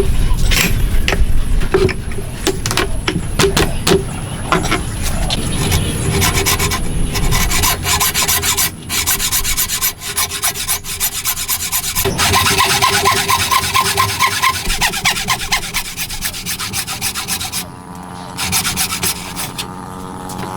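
Hand tool working wood in runs of rapid, repeated strokes, the scraping sound of sawing or rasping at a joint. The strokes change pace several times and ease off near the end.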